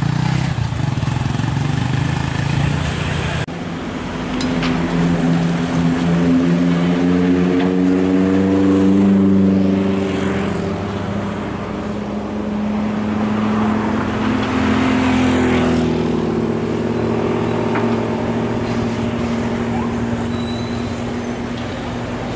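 Truck engine running, its note climbing slowly, dipping and climbing again as it revs; the sound changes abruptly about three and a half seconds in.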